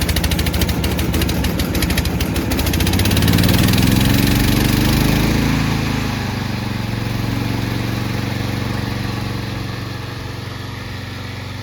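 The 16 HP gasoline engine of a remote-control lawn mower runs just after starting. It speeds up about three seconds in, then drops back to a steady, lower idle that gets quieter near the end.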